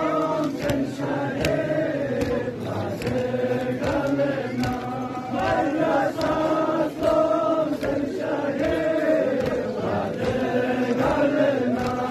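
A group of voices chanting a Balti noha, a Shia lament, with sharp beats keeping time about every two-thirds of a second.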